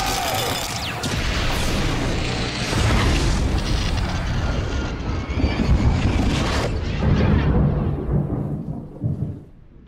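Film sound effects of a huge electrical energy blast: dense crackling and a continuous heavy rumble, like a long explosion, that dies away near the end.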